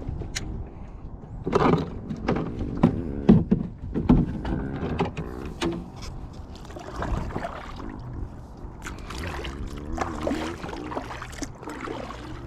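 Kayak on the water: irregular splashes and knocks, like a paddle dipping and bumping against the hull, over a steady low rumble.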